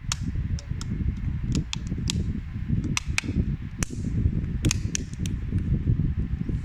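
Irregular sharp clicks and taps of small smartphone parts and tools being handled and fitted during reassembly of a Redmi Note 11, over a low rumble of handling noise.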